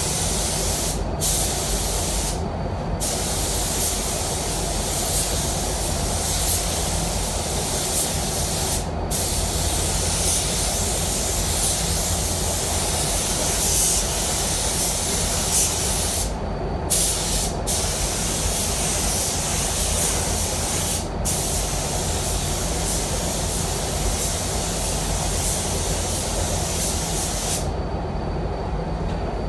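Air-fed automotive spray gun hissing as it sprays paint onto a bumper. The hiss breaks off briefly half a dozen times as the trigger is let go between passes, and stops shortly before the end. A steady low hum runs underneath.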